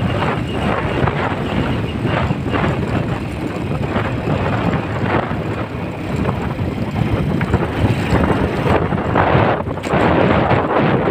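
Motorcycle riding: wind buffeting the microphone over the running engine and road noise. The gusts grow louder near the end.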